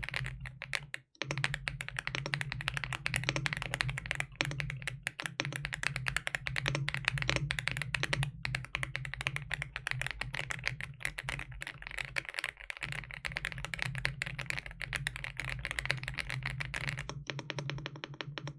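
AULA F75 MAX mechanical keyboard with pre-lubed switches being typed on quickly and continuously, a dense run of key clicks with a brief pause about a second in. A steady low hum runs underneath, and the typing stops shortly before the end.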